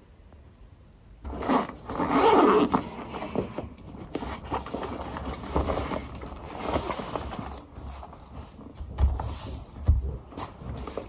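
A fabric Fjällräven Kånken backpack being rummaged through close to the microphone: rustling cloth, scraping and small knocks of things inside it, with a few low thumps near the end. It starts suddenly about a second in, after quiet room tone.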